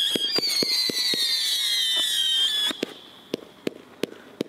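Hell Breaks Loose consumer firework: several shrill whistles sounding together, slowly falling in pitch, over a string of sharp pops. The whistles cut off suddenly about two and a half seconds in, leaving a few scattered pops.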